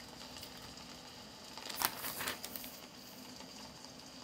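Thin Bible pages being turned by hand, a short paper rustle about halfway through, over a faint steady hum.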